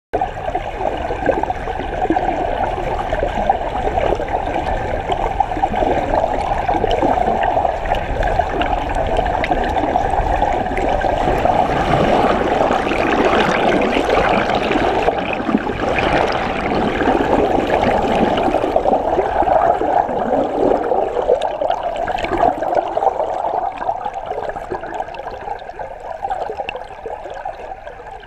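Water rushing and gurgling around an underwater camera as it moves through the sea: a steady churning noise that grows quieter over the last few seconds.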